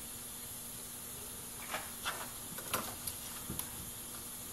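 Steady background hiss, then, from about two seconds in, a handful of light knocks and scuffs as small wooden pieces are handled on the workbench.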